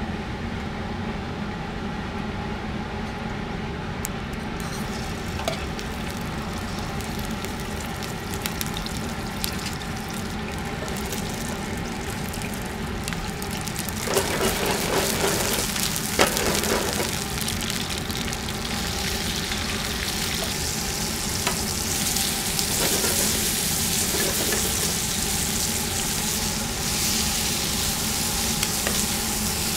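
Food frying in a hot pan, a steady sizzle that grows louder and brighter from about halfway through, with a few short clicks.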